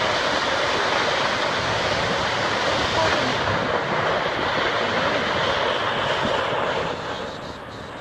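Tall waterfall plunging down a cliff, a steady rushing of falling water that eases slightly near the end.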